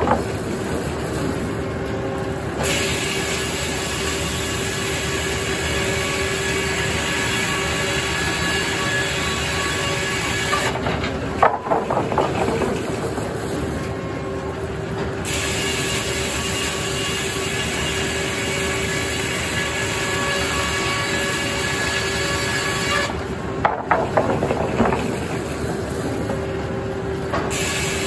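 Circular sawmill running with a steady hum, the blade sawing through poplar logs in passes of about eight seconds. Between the passes there are bursts of clattering knocks, about twelve seconds and twenty-four seconds in.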